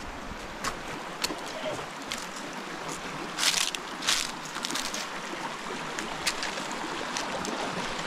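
Shallow stream trickling over rocks. Close, crisp crunches of sugarcane being bitten and chewed come every second or so, the loudest around the middle.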